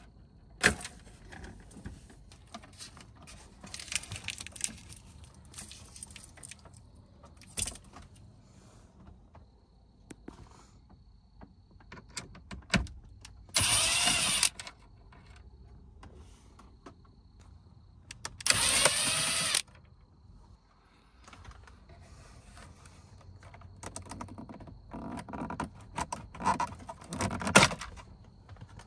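A Milwaukee Fuel cordless driver running in two short bursts, each about a second long, a little before and after halfway, driving out the screws that hold the centre-stack radio frame. Between the bursts come clicks and rattles of plastic wiring connectors and dash trim being handled.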